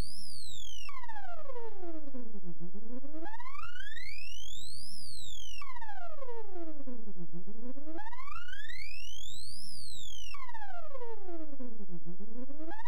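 Electronic buzzy tone sweeping smoothly up and down in pitch, over and over, from low to high and back in about two and a half seconds each way. A low rumble runs underneath.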